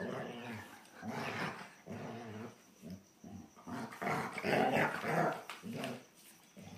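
Two German Shorthaired Pointers growling in a string of short bursts as they play-fight, the growls loudest and longest about four to five seconds in.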